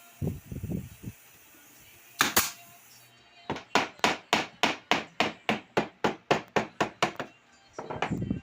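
Hammer striking wood: a few dull knocks, two sharp blows, then a quick even run of about sixteen blows at roughly four a second, and more dull knocks near the end.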